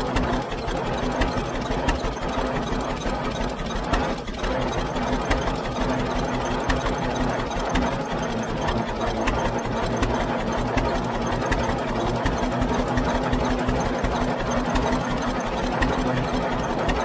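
1922 International Harvester Titan 10-20's twin-cylinder engine running steadily as the tractor is driven along, with a regular clatter of sharp ticks from its firing and valve gear.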